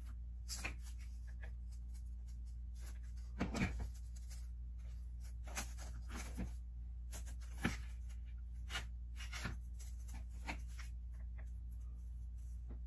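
Irregular light clicks and taps of hollow plastic Easter eggs being handled and knocked together on a craft table, over a steady low hum.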